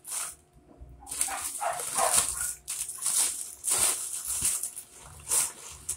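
Plastic snack and noodle wrappers crinkling and rustling in short irregular bursts as packs are picked up and counted.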